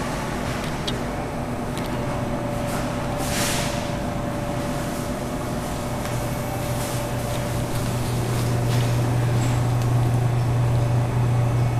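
Soda vending machines' refrigeration units humming steadily, the low hum growing louder about halfway through, with a brief hiss a few seconds in.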